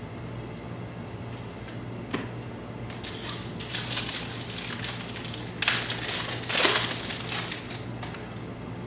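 A trading card pack wrapper being torn open and crinkled. The crackling builds about three seconds in, with two louder rips a little over halfway through. A low steady hum runs underneath.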